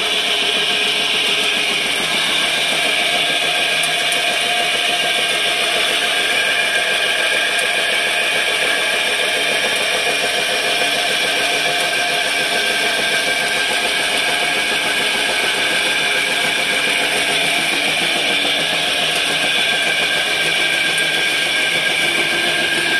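Briquette-making machine running steadily: a 5 hp electric motor belt-driving the extruder, giving an even mechanical drone with several held tones and no change in speed.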